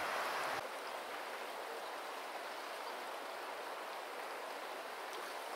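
Steady rush of flowing stream water, with no other events; it drops a little in level and loses its low rumble just under a second in.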